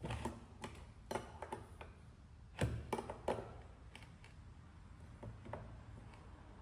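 Scattered light clicks and knocks of small objects being handled, the louder ones in the first three and a half seconds, then fainter taps.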